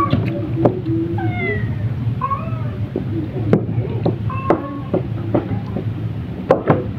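A cat meowing repeatedly in short calls that bend up and down in pitch. Sharp clicks, typical of mussel shells and dishes being handled, come through about three and a half seconds in and again near the end, over a steady low hum.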